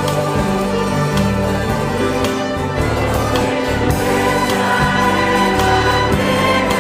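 Pentecostal church string orchestra of guitars, mandolins, violins and accordion playing a hymn with a steady beat, with choir and congregation singing along.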